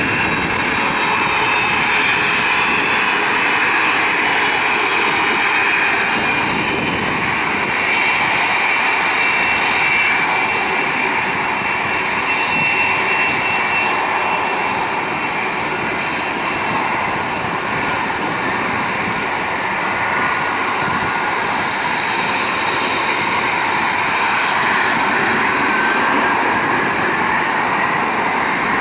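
Boeing 767-300's Rolls-Royce RB211 jet engines whining steadily as the airliner taxis, with a whine that rises in pitch near the end.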